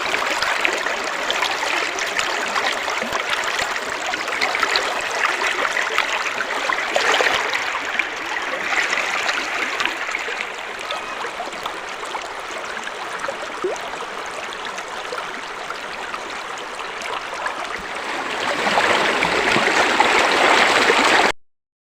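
A hill stream of cold water running steadily, a little louder near the end, then cutting off suddenly.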